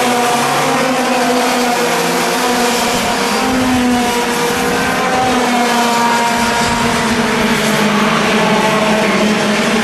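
A pack of Junior TKM race karts running at racing speed, several two-stroke engines sounding at once, their pitches rising and falling as the karts speed up and slow through the corners.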